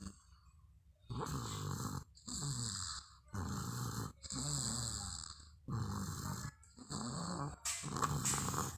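A one-year-old snoring in sleep: a regular run of snores, about one a second, seven in all, starting about a second in.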